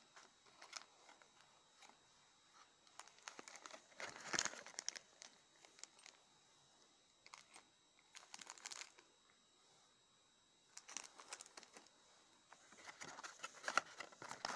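A clear plastic parts bag crinkling as it is handled, in several short bursts, the loudest near the end.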